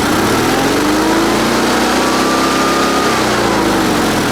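Onan 16 hp twin-cylinder engine of a Sears Suburban garden tractor running, its speed creeping up and then dropping about three seconds in. It is running at an uneven speed that the owner doesn't like.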